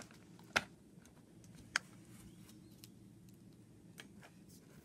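Three light, sharp handling clicks, about half a second in, near two seconds and near four seconds, over a faint steady room hum.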